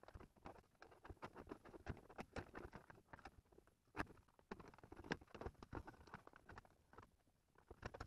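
Quiet handling noise of a wiring bundle being tucked into a plastic dashboard console: irregular rustling with small plastic clicks and knocks, the sharpest click about four seconds in.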